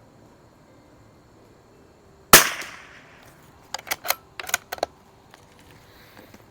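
A single shot from a CZ 452 bolt-action .22 LR rifle about two seconds in, with a short echoing tail. About a second and a half later comes a quick run of metallic clicks as the bolt is worked to eject the case and chamber the next round.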